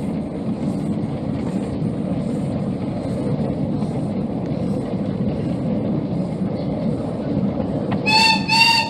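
Miniature railway train running, a steady low rumble of the carriages rolling along the track. Near the end the locomotive gives two short, high toots in quick succession.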